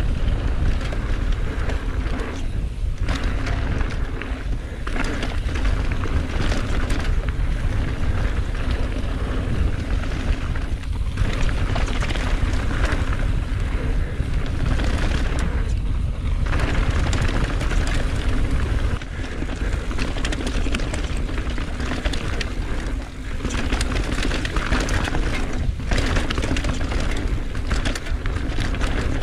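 Mountain bike ridden fast down a rough enduro trail: a constant deep rumble of wind on an action camera's microphone, with the rattle of the bike and tyres over dirt and rocks, broken by many short knocks.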